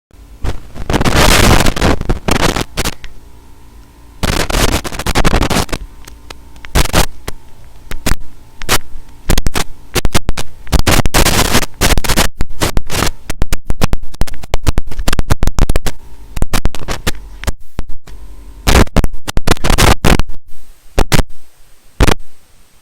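Microphone distortion sound effect: loud bursts of static crackle that cut in and out irregularly, imitating a faulty, breaking-up mic. The first bursts last a second or two. From about eight seconds in they break into rapid, choppy stutters, over a faint steady hum.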